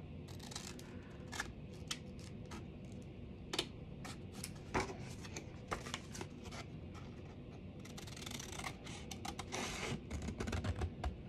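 Large craft scissors cutting along a paper envelope blank: a run of short, crisp snips with some paper rustle between them.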